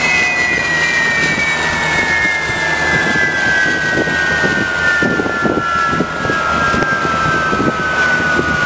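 Westinghouse J34 turbojet on a test stand spooling down, its whine falling steadily in pitch throughout, over a loud rough rush of engine noise.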